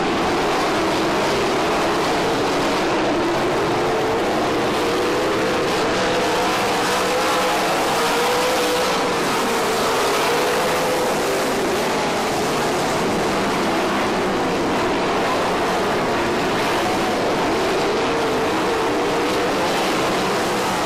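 A field of winged 360 sprint cars racing on a dirt oval: many V8 engines running hard together in a steady, blended drone, its pitch wavering up and down as the cars go around the track.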